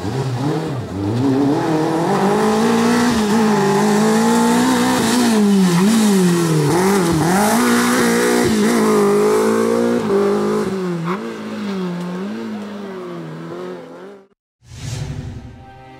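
Rally car engine revving hard, its pitch repeatedly climbing and dropping as the car accelerates, brakes and shifts through the bends, fading as it drives off. The sound cuts off suddenly near the end, followed by a brief burst of noise.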